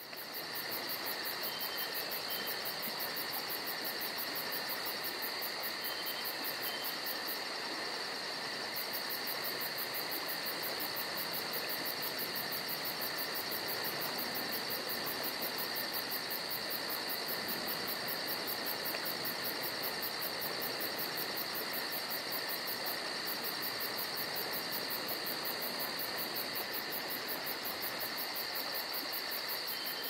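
Steady, unbroken chorus of insects, shrill and high-pitched with a very fast pulsing, over an even rushing noise.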